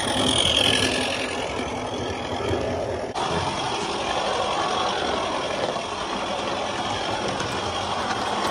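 Regner Lumberjack live-steam garden locomotive running along its track with its cars in tow, a steady mechanical running noise of the engine and wheels on the rails. The sound shifts abruptly about three seconds in.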